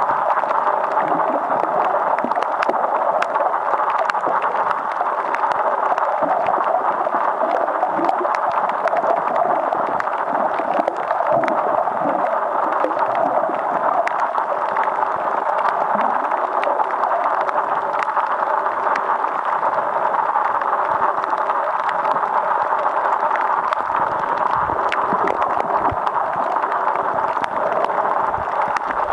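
Muffled underwater ambience heard through a submerged camera: a steady, dense water rush with gurgling and frequent faint clicks and crackles.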